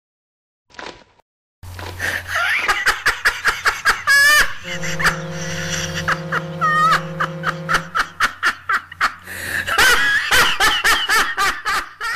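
Canned audience laughter with clapping, starting about one and a half seconds in and running on. Shrill squealing laughs break through twice. In the middle, a long low ship's horn blast is held for about three seconds under the laughter.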